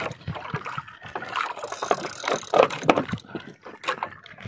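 Water lapping and splashing against the hull of a small paddle outrigger boat (bangka), mixed with irregular knocks and clicks of handling.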